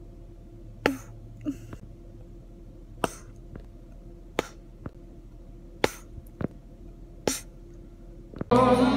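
Bubble gum popping and snapping in the mouth: about eight short, sharp pops spread over several seconds. Near the end, loud music starts abruptly.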